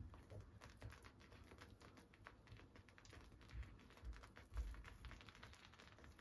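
Faint, irregular small clicks and soft pops from a thick milk-and-flour pepper sauce simmering on low heat as a silicone spatula stirs it in the pan; the sauce is cooking down, nearly done.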